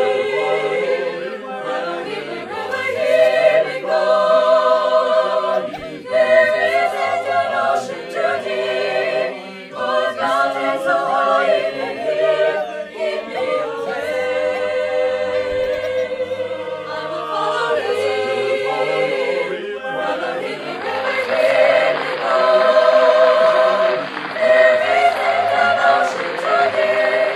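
A choir singing unaccompanied, several voices holding notes in harmony.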